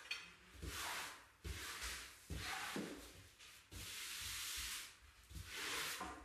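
Wallpaper smoothing brush swept in repeated strokes over freshly hung pre-pasted wallpaper on a ceiling, pressing it flat. There are about six brushing swishes, with a longer one near the middle.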